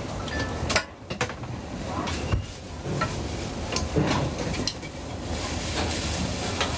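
Scattered taps and clatter of cooking utensils on pans at a street-food stall, over a steady low background hum.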